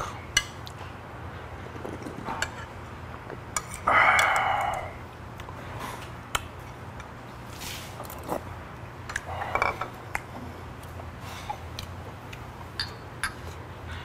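Close-up eating sounds: a spoon and chopsticks clinking against a small bowl, with loud slurps of spicy fish-stew broth about four seconds in and again just before ten seconds. A steady low hum runs underneath.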